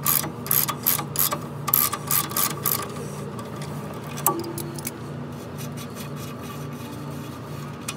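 Half-inch drive ratchet clicking in quick repeated strokes as it loosens a sway bar link's lower nut, the link's stud held with a wrench because it spins with the nut. The clicking fades after about three seconds, with one more click near the middle.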